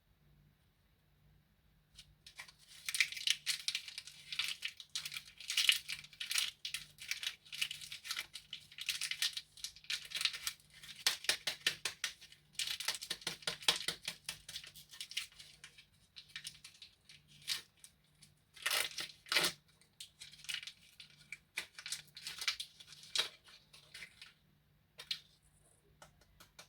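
Plastic candy wrappers crinkling and tearing in a dense run of crackles, starting about two seconds in and thinning out near the end.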